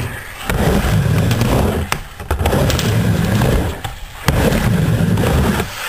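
Skateboard wheels rolling on a ramp with a steady low rumble and sharp clacks of the board, breaking off briefly three or four times.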